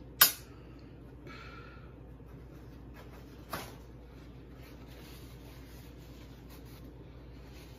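Two sharp clicks, the first about a quarter second in and much the loudest, the second about three and a half seconds in, with faint rubbing and rustling of a paper towel between and after.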